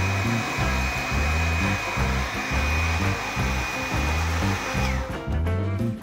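Electric heat gun blowing hot air, its fan giving a steady high whine that falls away as it is switched off about five seconds in. Background music with a steady beat plays under it.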